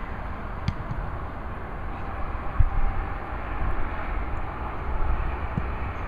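Wind rumbling on the microphone on an open field, with a sharp smack under a second in from a football being kicked, and low thumps about two and a half seconds in and near the end.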